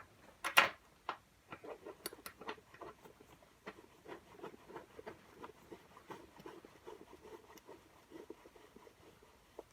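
Seatbelt retractor unit being fitted into a car by hand: one sharp knock about half a second in, then a run of light, irregular clicks and taps of metal and plastic parts being handled.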